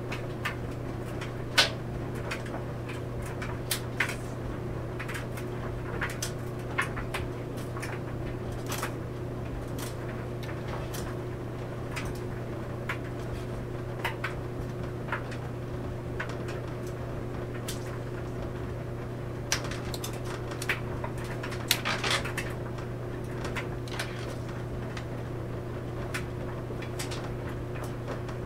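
Clothes dryer running with a steady hum, laundry tumbling in the drum and making irregular clicks and knocks, with a short cluster of knocks about three-quarters of the way through.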